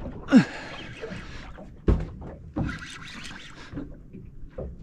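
Fishing reel being wound while playing a hooked fish, in two spells of winding. There is a short falling-pitched sound near the start and a sharp knock about two seconds in.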